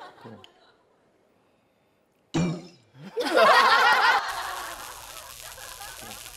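Near silence for about two seconds, then a sudden short sound. About three seconds in, a man and a woman burst out laughing loudly. The laughter gives way to a steady, quieter background sound.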